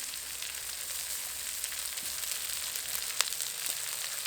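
Stir-fry sizzling in hot oil in a kadai as cooked rice goes in over vegetables, egg and chicken with soy sauce: a steady hiss, with one sharp tap about three seconds in.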